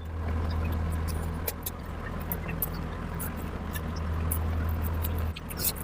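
Scattered short wet clicks and smacks of a person eating, over a steady low hum that dips briefly near the end.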